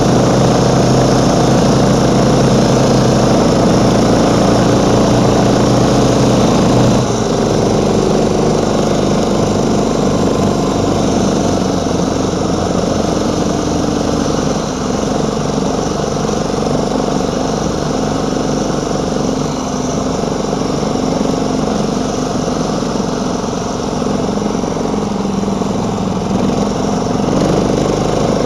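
Small engine of a homemade single-ski snowmobile running steadily under way, easing off slightly about seven seconds in.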